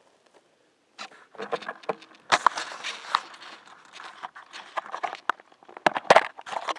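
Handling noise as the camera is picked up from dry grass and fumbled. From about a second in, fingers and skin rub and tap against the microphone and casing in a dense run of scraping rustles and sharp clicks, loudest at about two and a half seconds and again at about six.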